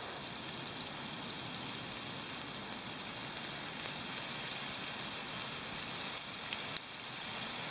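Sugar syrup with almonds boiling steadily in a non-stick pan over a small wood-burning stove, while the water is still cooking off. A couple of sharp crackles from the wood fire come near the end.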